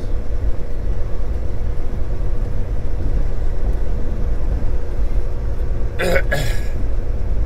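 Semi-truck heard from inside the cab on the road: a steady low engine and road rumble with a faint steady hum. A short sharp noise comes about six seconds in.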